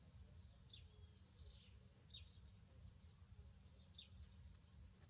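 Faint bird chirps: short, high, downward-sweeping calls, several spread over a few seconds, over a low background rumble.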